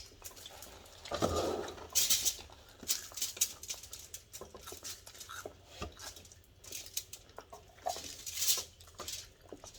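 Close-up eating sounds: chewing and lip smacking, a run of short irregular wet clicks and crunches.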